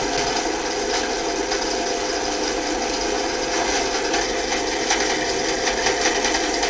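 Steady mechanical running noise with a fine, even rattle, unbroken throughout.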